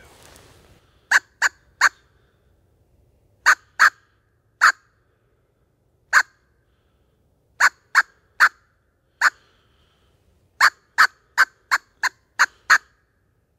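Hand-blown squirrel call sounding short, sharp barks, singly and in quick runs of two to seven with pauses between, imitating a squirrel's bark to call one in.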